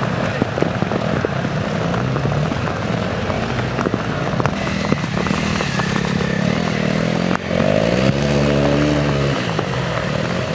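Honda CRF250L single-cylinder police motorcycle engine running on an off-road course, its revs rising and falling about two-thirds of the way through, with scattered clicks and knocks.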